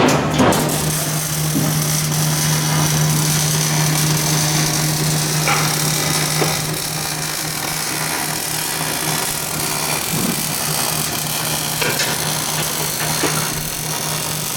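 A power tool running steadily in a metal fabrication shop, with a constant low hum and a few light knocks of metal work.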